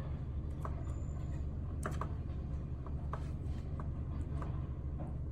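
Irregular plastic clicks from the keys of a slim Macally Bluetooth number pad being pressed and handled, over a steady low hum.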